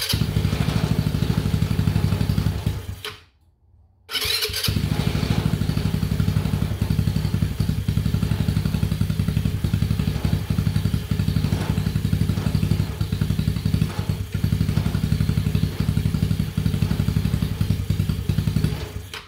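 Cold GY6 four-stroke single-cylinder scooter engine running in a Honda Ruckus after sitting unused. It dies away about three seconds in, is running again about a second later, and keeps running steadily.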